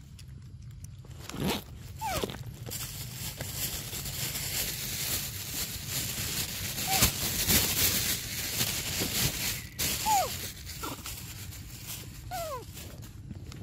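Young macaques giving short squeaky calls, each one sliding in pitch, several times through the stretch. A steady hiss underneath cuts off suddenly about ten seconds in.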